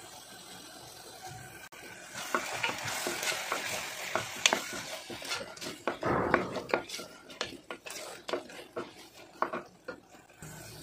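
A wooden spoon stirs and scrapes a frying tomato-onion masala in a pressure cooker, with sizzling. From about two seconds in, the spoon knocks repeatedly against the pot.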